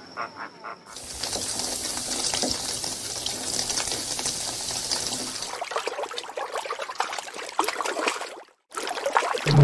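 Running water, a steady rush of noise that starts about a second in and thins out after about five seconds, broken off by a sudden cut near the end.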